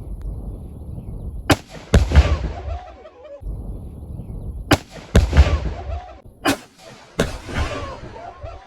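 A .22 rifle shot cracks, and about half a second later 10 pounds of Tannerite in a microwave detonates in a heavy boom with a long rumbling decay. The crack-then-boom pair comes three times, as replays of the same blast.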